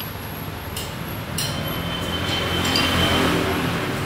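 A motor engine passing close by, swelling to its loudest about three seconds in and then fading, with a couple of sharp clinks a second or so in.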